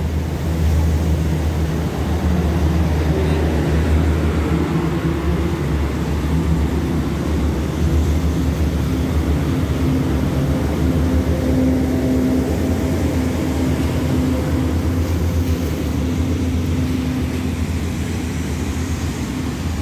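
Diesel passenger train pulling out of the station and rolling past close by: a steady low engine drone with the rumble of wheels on rails, easing a little as the rear of the train moves away near the end.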